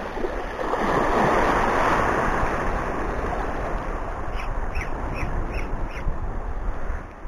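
Sea washing against rocks, with wind on the microphone. From about four seconds in, a run of about five short high squeaks comes from the Ecooda Black Hawk spinning reel's drag as the bent rod gives line to a hooked fish.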